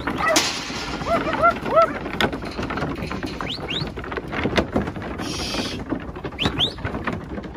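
Sheep moving through a wooden-sided race and steel yard panels: many short knocks and clatters of hooves and bodies against boards and rails. Short bird calls sound over it, a quick run of four about a second in and rising chirps later, with a brief hiss a little after five seconds.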